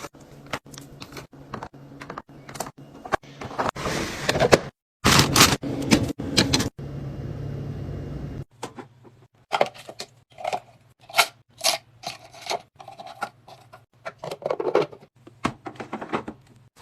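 Food containers and packaging being handled and set down while a fridge is restocked: a run of clicks, knocks and scrapes, a dense burst of rustling about five seconds in, a steady hiss for about two seconds, then scattered light clinks and taps.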